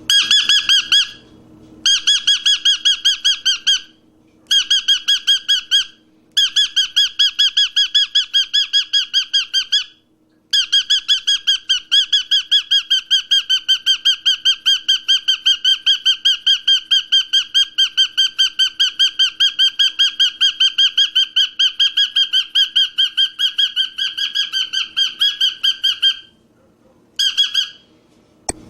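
Cockatiel chirping in a fast, even run of short repeated calls, about four or five a second, in long stretches broken by a few brief pauses.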